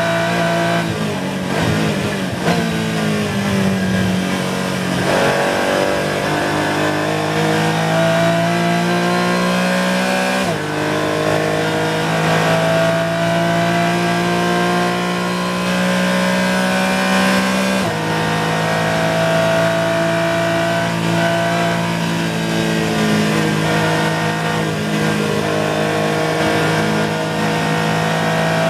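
Onboard sound of a Porsche 718 Cayman GT4 race car's flat-six engine at high revs. It slows and changes down in the first few seconds, then pulls hard under full throttle, its pitch rising steadily, with sharp drops at upshifts about ten and eighteen seconds in before climbing again.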